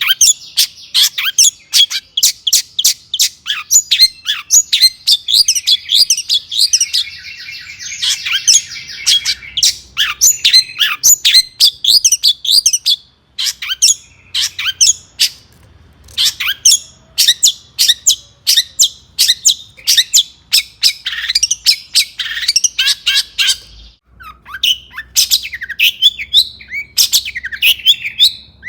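Long-tailed shrike (cendet) singing hard: a fast, continuous run of sharp, scratchy notes, several a second, mixed with mimicked phrases of other birds, including a buzzy trill about eight seconds in. Twice the singing breaks off briefly.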